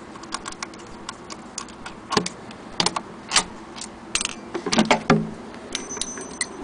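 Irregular small clicks and rattles from a key turning in the lock of a Singer 28K sewing machine's wooden case, with several sharper knocks of wood from the middle on as the case is handled.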